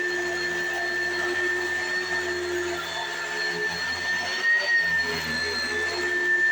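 A 2008 Oreck XL Classic upright vacuum cleaner running steadily with a high motor whine. The whine rises slightly in pitch about four and a half seconds in.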